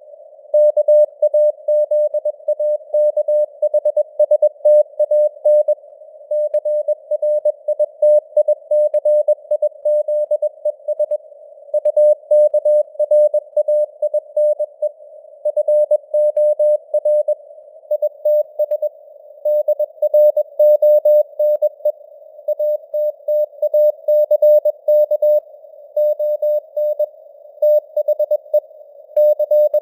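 Morse code (CW) sent at 21 words per minute: a single mid-pitched tone keyed on and off in dots and dashes, over a narrow band of simulated radio receiver hiss, its signal strength varying as in QSB fading.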